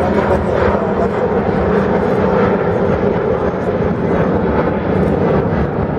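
An Airbus A350-900 airliner's two Rolls-Royce Trent XWB turbofan engines at takeoff thrust, a loud, steady jet noise as the airliner climbs out just after lift-off.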